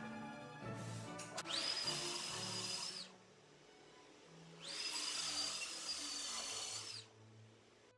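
Track saw on a guide rail, its motor run up twice in short bursts of a second and a half and about two and a half seconds, each with a steady high whine that winds down when released.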